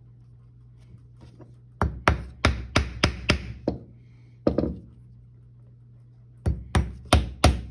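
Claw hammer driving nails into a wooden board: a run of about seven quick blows, about three a second, then a single blow, and after a pause another quick run of blows near the end.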